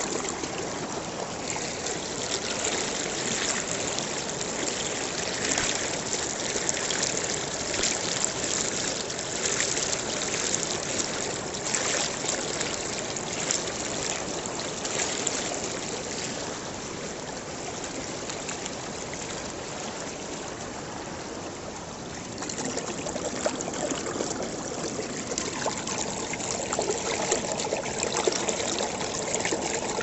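Steady trickling, splashing water with many small ticks, a little quieter for a few seconds past the middle and livelier again near the end.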